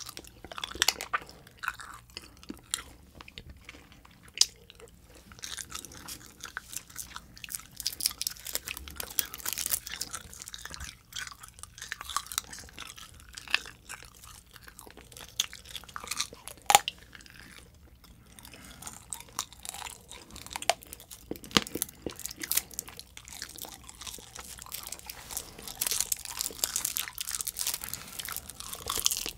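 Close-miked chewing and mouth sounds of edible tape candy being bitten and eaten, with many irregular sharp clicks and crackles.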